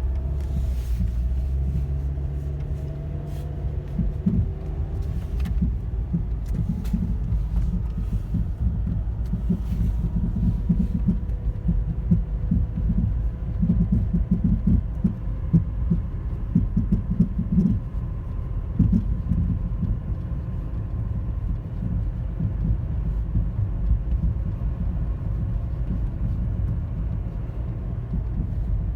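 2010 Toyota Corolla LE making a loud thumping, popping noise over a steady low rumble, with uneven thumps bunched in the first two-thirds and easing later. The owner does not know the cause of the noise.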